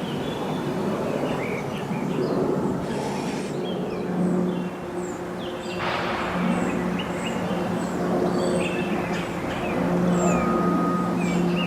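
A steady mechanical drone with a low held hum, likely from a distant aircraft's engines, under birds chirping with many short, falling calls.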